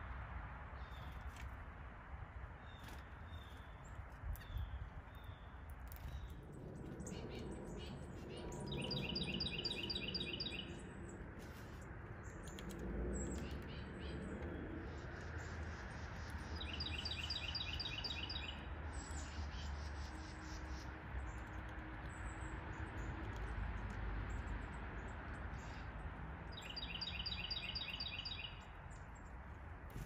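A songbird sings a short trill of quickly repeated notes three times, about nine seconds apart, with a few faint chirps in the first few seconds, over a steady low outdoor hum.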